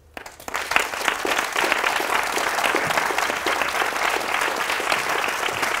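Audience applauding, many hands clapping. It builds up within the first second, then holds steady.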